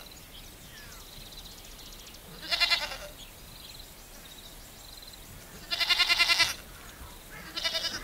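Sheep bleating three times, each a wavering call: a short one about two and a half seconds in, a longer one near six seconds, and a brief one just before the end.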